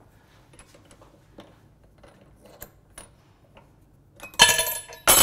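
Faint small clicks, then near the end two loud metallic clinks that ring on briefly: a steel chuck key and drill bit knocking against the chuck of a bench drill press while a bit is being fitted.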